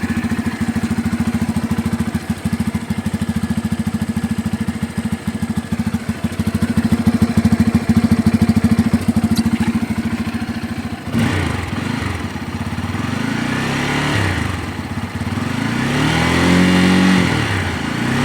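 Bajaj Pulsar N250's single-cylinder engine idling steadily in neutral, then revved in several throttle blips from about two-thirds of the way in, the pitch rising and falling with each one.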